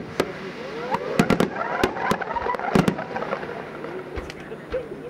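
Daytime aerial fireworks: a run of sharp firework bangs, with a quick cluster of reports about a second in and another near three seconds, and fainter pops later.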